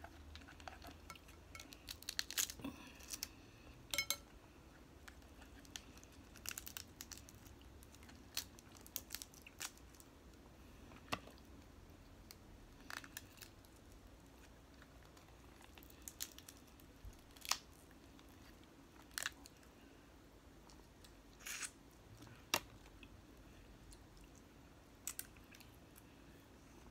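Snow crab leg shells cracking and snapping as they are broken open and picked apart by hand, in scattered sharp cracks every second or two.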